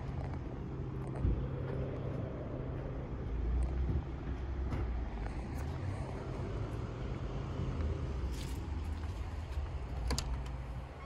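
Steady low rumble of outdoor background noise, with a sharp click about ten seconds in as the glazed front door is opened.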